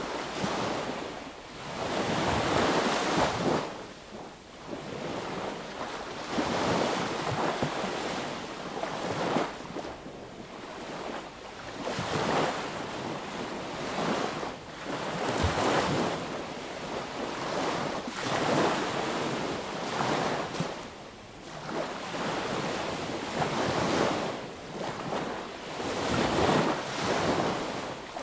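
Small sea waves breaking and washing up on a beach, each wash swelling and fading every two to three seconds.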